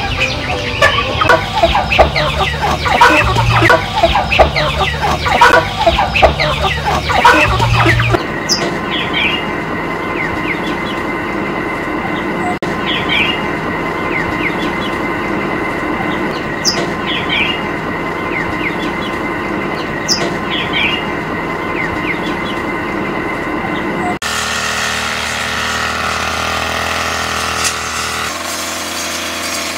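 A flock of poultry clucking and calling densely for about eight seconds. Then, after a cut, a steady hum with a few short rising calls spaced a few seconds apart, and near the end a cut to a different steady noise.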